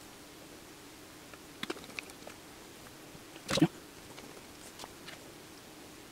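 Small clicks and taps of a precision screwdriver and the phone's plastic bottom cover as a screw is driven in, with one louder sharp knock about three and a half seconds in.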